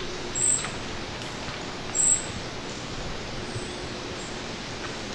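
Outdoor ambience: a steady hiss, with two short, very high chirps from a small bird about a second and a half apart.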